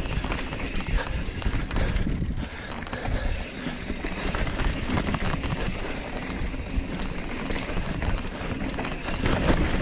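Ragley Big Al hardtail mountain bike riding over a rocky dirt trail: tyres rolling and the bike rattling and knocking over rocks in a quick, irregular series of clicks and clunks. Wind rumbles on the microphone throughout.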